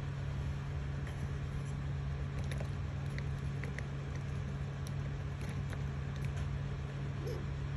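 Steady low hum of the Creality Ender 3 3D printer's cooling fans running, with a few faint light clicks as fingers work the extruder's tension arm.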